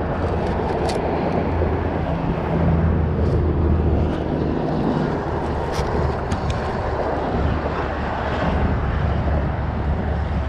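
Underwater recording of a steady, loud low droning hum with a few sharp clicks scattered through it. This is the unexplained underwater sound, which the recordist guesses is black drum drumming.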